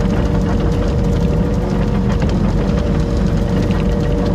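Excavator's diesel engine running steadily under load as its blade pushes snow, with a steady thin whine above the engine note.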